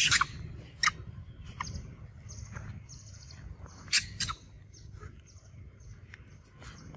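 Young long-tailed macaque giving short, sharp high screams as an adult grabs and wrestles it: one at the start, another just under a second in, the loudest about four seconds in. Behind them a steady run of high chirps repeats about twice a second.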